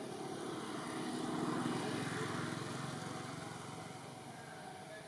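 A motor engine passing, growing louder for about two seconds and then fading away.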